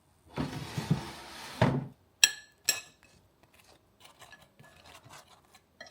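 A short rush of noise, then two sharp, ringing clinks about half a second apart, like crockery or metal being knocked together, followed by a few faint small clicks.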